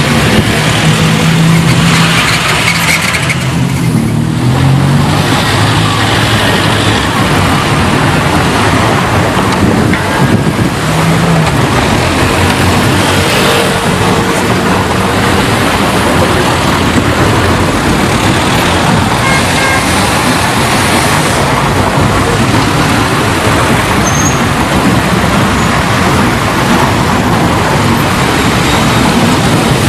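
City street traffic: a continuous wash of passing cars and other vehicles, with an engine's drone standing out over the first few seconds.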